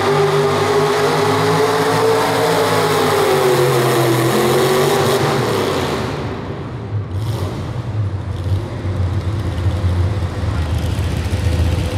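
1970s Ford pickup's engine running at high revs under full load, dragging a truck-pulling sled, its pitch sagging and recovering as the sled bogs it down. About halfway through the driver lets off, and the engine drops to a lower, quieter rumble at idle as the pull ends.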